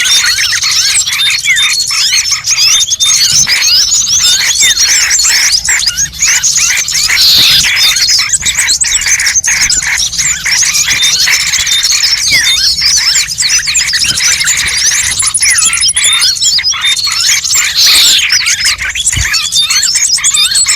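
Dense, unbroken chorus of many small birds chirping and twittering over one another, with a couple of louder squealing calls about 7 and 18 seconds in: a bird-lure (pikat) recording made to draw wild birds in.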